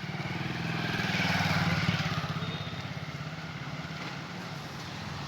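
A motor vehicle engine running with a steady, fast pulse, and a rush of road noise that swells about a second in and fades by the third second.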